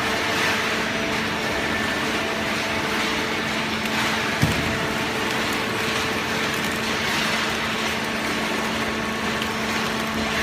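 Hydraulic baling press running with a steady hum from its pump motor over an even mechanical noise, with a single sharp knock about four and a half seconds in.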